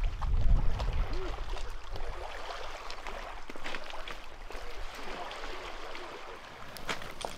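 Small waves lapping and splashing against rocks along a stony lake shore, with wind buffeting the microphone as a low rumble in the first second or so.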